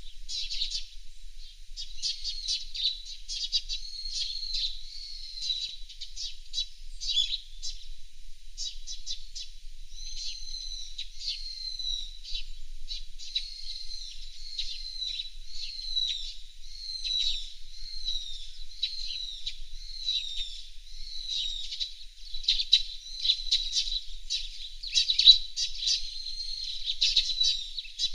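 Small songbirds chirping and twittering continuously in quick, high notes, several calls overlapping, with a faint steady high tone underneath.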